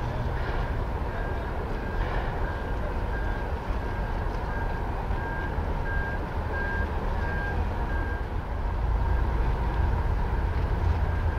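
A vehicle's reversing alarm beeping steadily, about three beeps every two seconds, stopping about eight seconds in. Under it is a steady low rumble that grows louder near the end.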